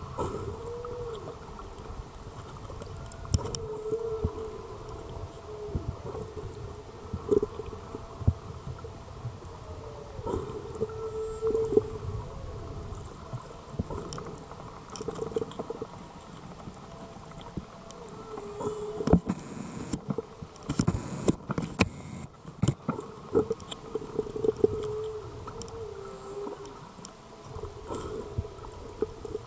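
Short-finned pilot whales calling underwater: many short calls that bend up and down in pitch, heard muffled through the water, with sharp clicks and knocks that come thickest about two-thirds of the way through.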